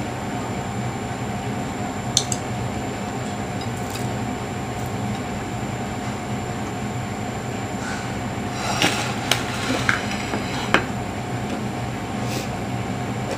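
Steady hum of an electric fan, with a few light clicks and clinks of dishes on the table, most of them together about nine to eleven seconds in.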